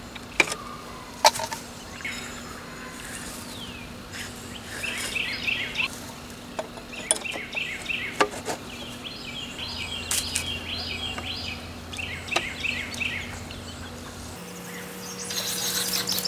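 A bird sings repeated runs of quick, high chirping notes. Scattered sharp clicks and knocks come from hands and a screwdriver working a flagpole's plastic pulley fitting and rope.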